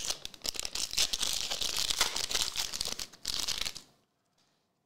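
A 2023 Select AFL Legacy trading-card pack wrapper crinkling and tearing as it is ripped open by hand. The sound stops suddenly about four seconds in.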